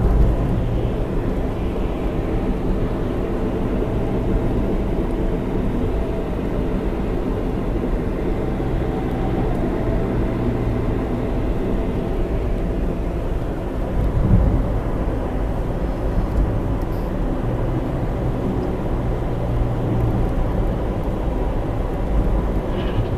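Steady engine and road rumble heard from inside a moving car, with a short low thump about two-thirds of the way through.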